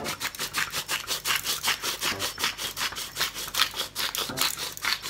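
Hand-twisted pepper mill grinding peppercorns: a rapid, even run of dry crunching clicks, about eight or nine a second.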